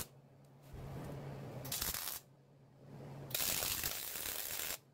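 MIG welder laying short welds on a steel floor pan: two bursts of steady crackling sizzle, the first about a second and a half long, the second about two seconds, each with a low hum under it.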